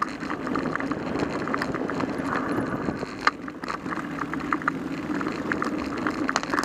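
Mountain bike rolling fast down a dirt trail: a steady rush of tyre and wind noise, with frequent small rattles and clicks as the bike jolts over bumps and one sharper knock about three seconds in.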